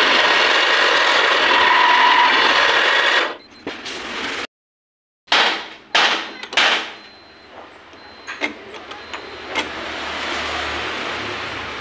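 Milling machine end mill cutting metal, a loud steady grinding chatter that stops about three seconds in. After a brief break come three sharp metallic knocks, then a few light clicks and a low machine hum.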